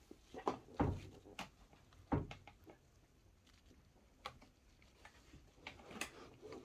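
A hand handling a rubber Oxford heated grip on a scooter handlebar: scattered soft knocks and rubs, the two loudest about a second and two seconds in.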